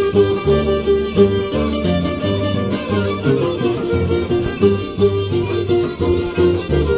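Instrumental break played on violin and a large harp: the violin carries the melody while the harp plucks a steady, rhythmic bass line.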